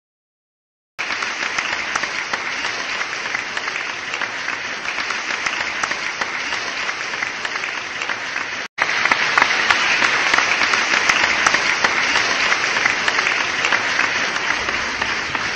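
Crowd applauding, starting abruptly about a second in. After a brief dropout about two-thirds through, the clapping comes back louder, then begins to fade near the end.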